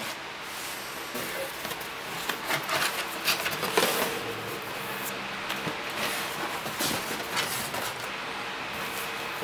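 Cardboard shipping box being opened: packing tape slit along the seam, then the cardboard flaps pulled open and handled, with scraping, rustling and sharp knocks, busiest and loudest a few seconds in.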